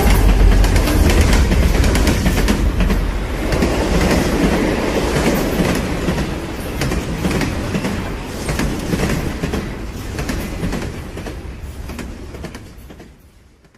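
Heavy rumbling with a dense run of clattering clicks, like a vehicle rolling on rails, fading away over the last few seconds and stopping at the end.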